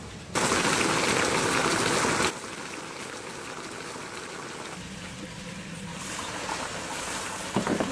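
Braising broth with a whole carp and pork belly bubbling in a covered wok: a loud hissing boil for about two seconds, then a softer, steady simmer.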